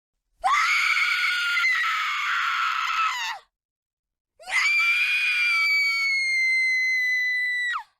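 A woman screaming in terror, twice: a long high-pitched scream, a pause of about a second, then a second long scream that holds one pitch and falls away at the very end.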